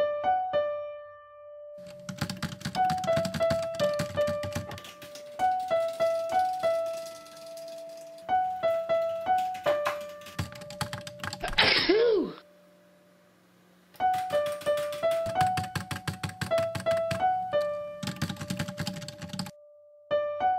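Light electric-piano music with fast typing on a computer keyboard in several runs, broken by one loud, short burst of noise near the middle.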